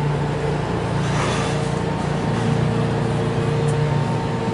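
Steady low hum of an idling engine, with a faint steady whine above it and a brief whoosh about a second in.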